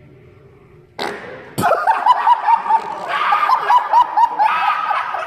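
A sharp knock about a second and a half in, then rapid high-pitched laughter: short repeated 'hee' sounds, about five a second, for some three seconds.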